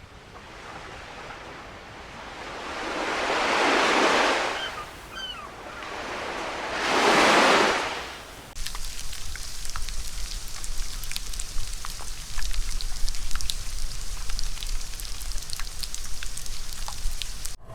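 Ocean surf, two waves swelling up and washing away. About halfway through it changes abruptly to rainfall: a steady patter of many small drops over a low rumble.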